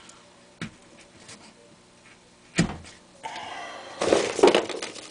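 Handling of crumpled junk-mail paper balls on a nailed wooden board: a light knock, then a sharper knock, then about two seconds of crackly paper crinkling that is loudest near the end.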